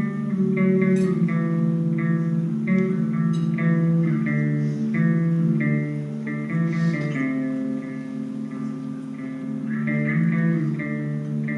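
Guitar played solo: a steady flow of picked melodic notes over held lower notes.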